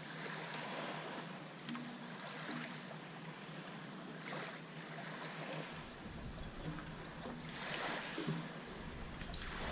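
Small waves washing against the shallows and the jetty, swelling every few seconds, with wind on the microphone.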